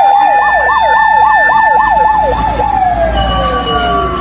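Japanese fire engine's sirens: a fast electronic warble, about three to four cycles a second, of the kind sounded when crossing an intersection, over a mechanical motor siren holding a steady wail. About two and a half seconds in, the warble stops and the motor siren winds down in pitch, with the truck's engine running underneath.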